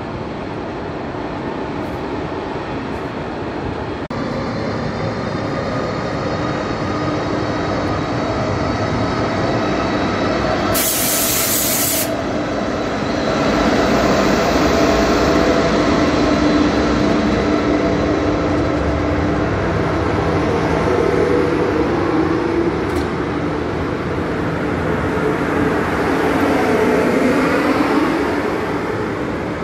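RegioJet locomotive and its passenger coaches running past along the platform: a steady rumble of wheels with a humming drone that gets louder as the locomotive draws level. A loud hiss lasts about a second, roughly eleven seconds in.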